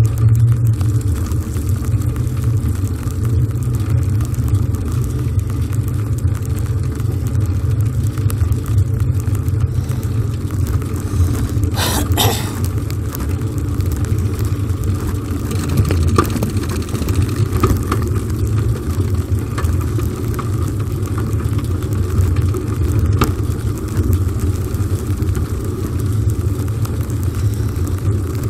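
Steady low rumble from riding a bicycle: tyres rolling on wet asphalt, with wind on the microphone. There is a short, sharper noise about twelve seconds in.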